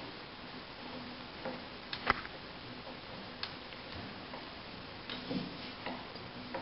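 Scissor car jack being cranked by hand as it bears down on a honeycomb press: a few separate, irregular clicks from the crank handle and jack screw, the loudest about two seconds in.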